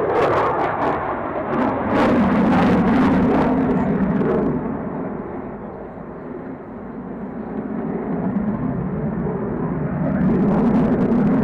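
Aircraft engine noise, loud at first, easing off around the middle and building again near the end.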